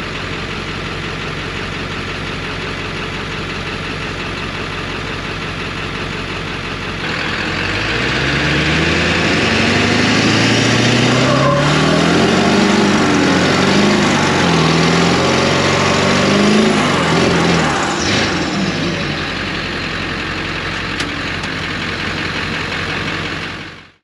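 Pickup truck doing a burnout: the engine runs steadily, then from about seven seconds it revs up and down hard over a louder rush of spinning tires on concrete. It eases off after about eighteen seconds and the sound cuts off abruptly at the end.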